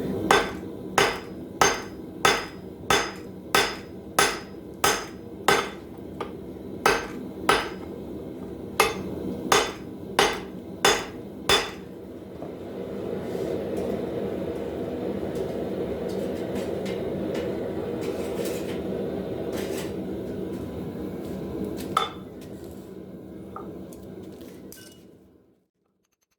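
Hand hammer striking hot steel on an anvil: a steady run of about sixteen ringing blows, roughly one every two-thirds of a second, during hand forging of a hammer head. The blows stop about twelve seconds in, leaving a steady rushing noise, with one more strike about twenty-two seconds in before the sound fades out near the end.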